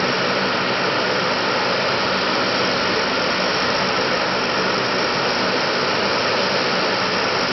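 Lockheed C-130 Hercules with all four Allison T56 turboprop engines running while parked: a steady, loud, dense rush of propeller and turbine noise with a low hum beneath.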